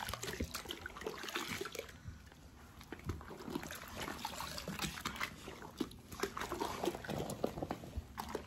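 Bath water sloshing and trickling in small, irregular splashes as a chimpanzee moves about in the tub.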